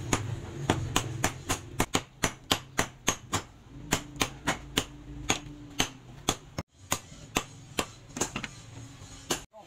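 Blacksmith's hand hammer striking red-hot steel rebar on a post anvil in a steady rhythm, about three to four sharp blows a second.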